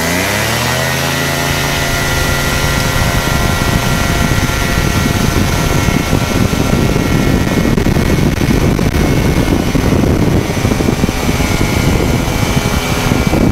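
Cors-Air Black Bull two-stroke engine and pusher propeller of a flexwing microlight trike opening up to full power for the takeoff run. The pitch rises over about the first second, then the engine holds at a steady full-throttle drone.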